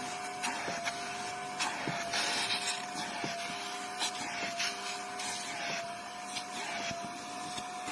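Kärcher Puzzi spray-extraction vacuum running, a steady motor whine under rushing suction. The suction surges and clicks every second or so.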